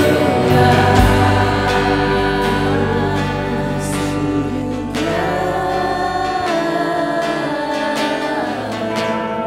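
Live worship music: a woman sings lead with backing singers over a band of electric guitars and bass. The bass drops out about two-thirds of the way through.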